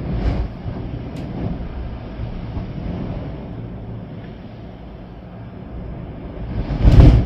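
Storm-force wind and rain, gusting, with low rumbling wind buffeting on the microphone. A strong gust hits the microphone about seven seconds in, the loudest moment.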